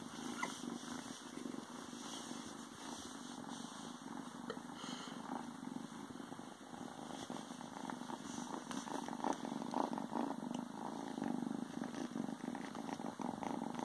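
Ragdoll kitten purring steadily, with soft rustling of cloth as it burrows inside a sweatpant leg.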